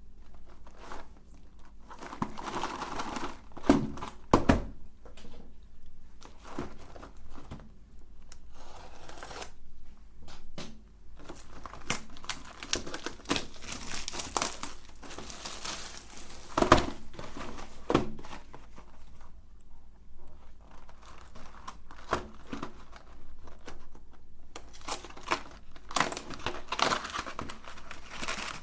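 Plastic Oreo wrapper crinkling and tearing as the package is handled and opened, with a few sharper knocks mixed in.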